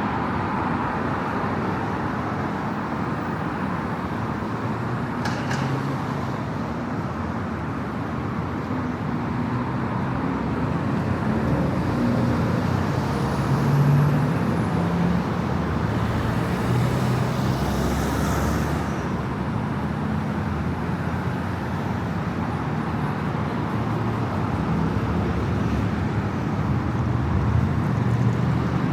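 Steady city road traffic: cars and buses running past, with a vehicle passing close and louder around the middle.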